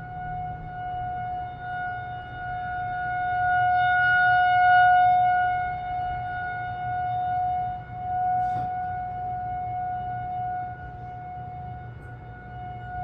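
Federal Signal 2001-230 outdoor warning siren sounding the steady alert tone during a siren test: one held pitch that does not rise or fall. Its loudness swells and fades as the rotating horn sweeps past, loudest about four to five seconds in.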